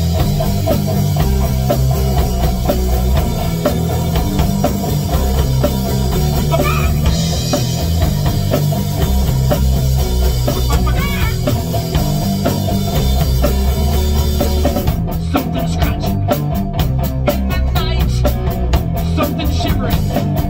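Rock band playing live: Ludwig drum kit, electric guitar and bass guitar, loud and steady with a heavy low end. About fifteen seconds in the drumming turns to rapid, evenly spaced hits.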